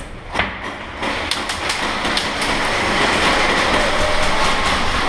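Airsoft guns firing in an exchange, a dense, continuous clatter of shots that grows louder about a second in.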